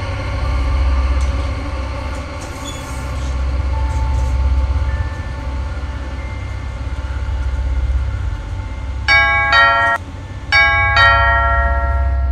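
Low droning horror background music, then an electronic doorbell rings twice near the end, each ring two chime notes that hold on.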